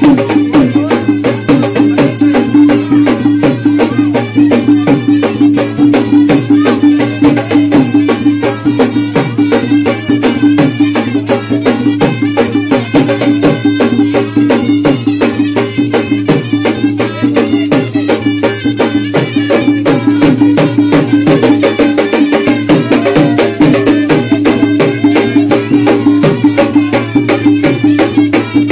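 Khalu baja band music played live: a double-headed barrel drum (dhol) beats a fast, steady rhythm over a continuous held drone, with a melody above it.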